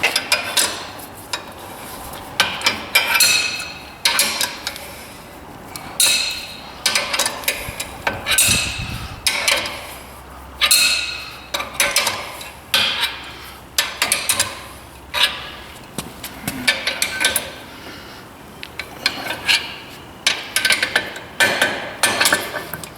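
Crescent wrench clinking and scraping against steel while loosening the T-bolts on a tractor's snowblower quick hitch: short, irregular metal clinks and rasps, about one or two a second.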